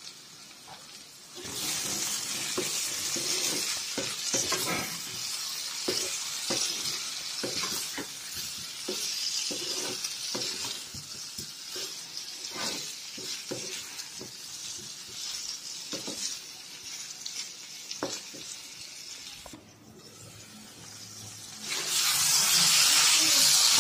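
Eel and potato pieces frying in oil and masala in a kadai, sizzling steadily while a spatula stirs them, knocking and scraping against the pan many times. The sizzling grows louder near the end.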